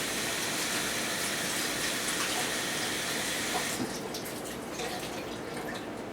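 Water running from a tap as hands are rinsed under it, shut off about four seconds in.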